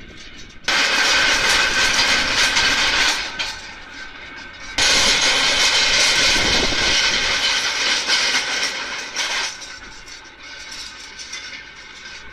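Tractor engine running as it pulls a Güttler Greenmaster grassland harrow-seeder through the paddock, its tines and rollers working the turf. A loud rushing noise sets in suddenly about a second in, eases near three seconds, then returns about five seconds in and fades away near nine and a half seconds.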